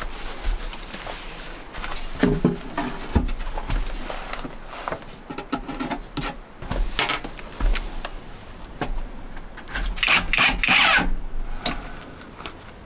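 Manual tool work: irregular knocks and scraping, with a longer, louder scrape about ten seconds in.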